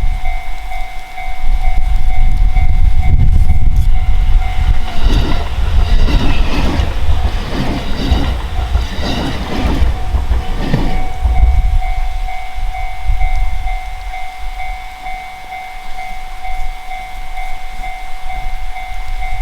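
Japanese level-crossing alarm sounding its repeating electronic bell while a train passes over the crossing, its wheels clacking over the rail joints for several seconds in the middle; the bell carries on after the train has gone.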